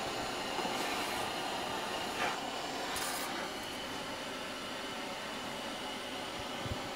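Steady hum of kitchen equipment, with a few faint soft knocks and brushes as a large knife cuts through a sponge roll cake and meets the wooden cutting board, about one, two and three seconds in.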